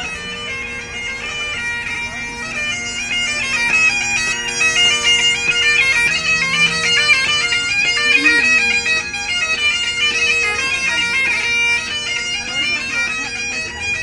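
Bagpipes playing a tune: a stepping chanter melody over steady, unchanging drones, a little louder after the first few seconds.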